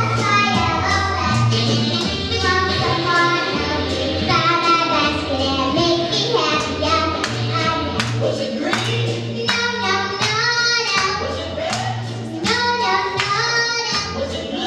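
A girl singing into a microphone over a backing track with a steady beat and a repeating bass line.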